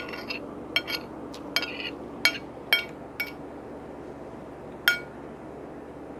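Eating utensil clinking against a dish as food is scooped up: about nine short ringing clinks over the first three seconds, then one more about five seconds in.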